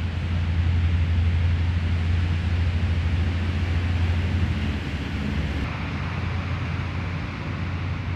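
Steady low hum under a constant hiss, with no speech; the highest part of the hiss drops away about six seconds in.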